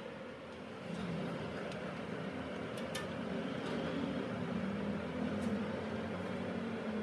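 Hot oil sizzling in a large karahi as folded pastries deep-fry, over a steady low mechanical hum, with a couple of light clicks about three seconds in.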